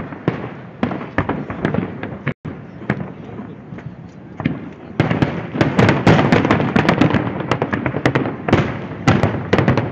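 Aerial fireworks shells bursting one after another with echoing booms and crackles, scattered at first, then a dense rapid volley from about halfway through.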